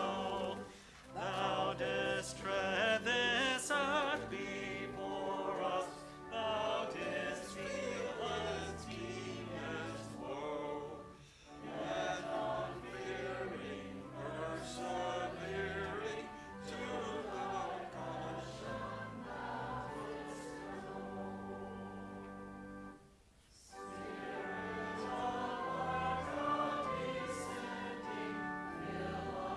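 Choral music: a choir singing with strong vibrato over sustained low accompanying notes, dropping away briefly twice between phrases.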